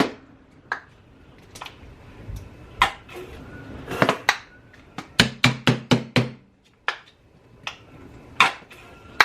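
Spoon knocking and scraping in a mayonnaise jar while scooping out mayonnaise, in short runs of quick sharp knocks, the longest run about five knocks a little past the middle.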